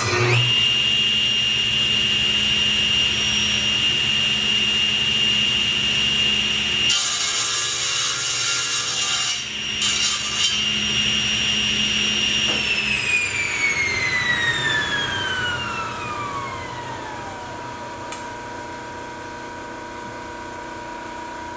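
Table saw switched on and running at speed with a steady high whine. It crosscuts a hardwood table-leg blank to length for about two and a half seconds around seven seconds in. About twelve seconds in it is switched off, and the blade's whine falls in pitch as it winds down over several seconds.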